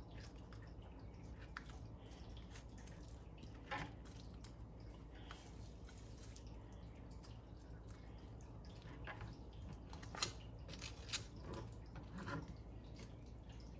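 Boning knife trimming fat off roast pork: faint wet squishing and scattered soft clicks of the blade working through the meat, a few louder ones in the second half.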